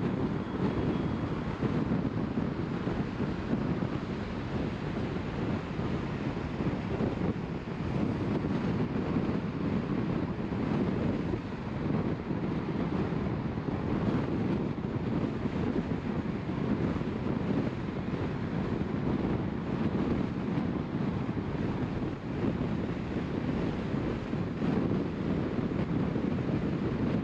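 Steady road and wind noise of a car driving along, an even low rumble with no breaks.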